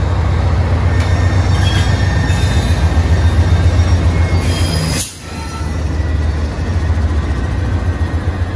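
Two GE Dash 9 diesel-electric locomotives passing close while working under load, with a heavy, steady low engine rumble. The sound dips suddenly and briefly about five seconds in, then comes back.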